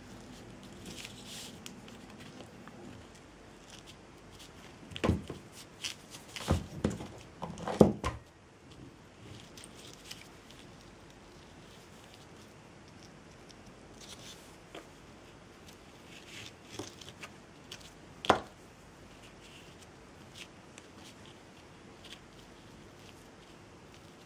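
Quiet handling sounds of hand work with jute, glue and small tools on a work surface. A cluster of sharp taps and clicks comes about five to eight seconds in, with a single sharp click near eighteen seconds and soft scattered ticks and rustles between.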